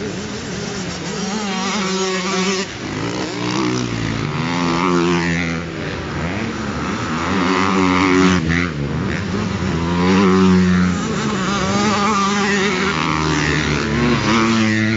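Motocross bikes accelerating through a corner one after another, each engine revving up and falling away as it passes, about five passes in all.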